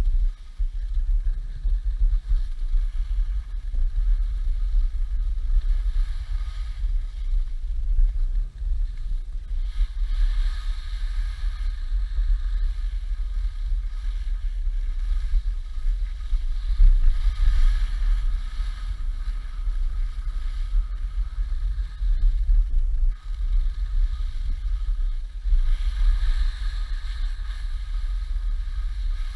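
Wind buffeting the microphone of a camera carried by a skier going downhill, a steady low rumble, with a higher hiss that swells three times.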